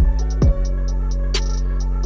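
Background electronic music with a beat: deep kick drums that drop in pitch, hits near the start and about half a second in, over regular hi-hat ticks and a held bass note, with a sharp cymbal-like hit past the middle.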